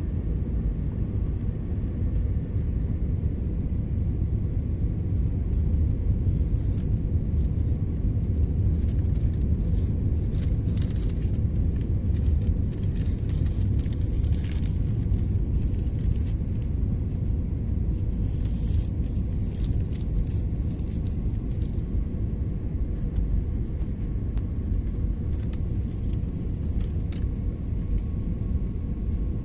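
Steady low rumble of a jet airliner's cabin in flight: the engines and the rush of air over the fuselage, heard from a window seat over the wing of an Airbus A320-family jet, with a faint steady hum underneath and a few light crackles near the middle.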